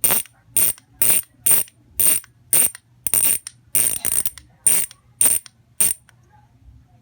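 Freewheel ratchet of a Maxzone Aggressor six-pawl rear bicycle hub buzzing in short bursts, about two a second, as the wheel turns against the pawls. The bursts stop about six seconds in.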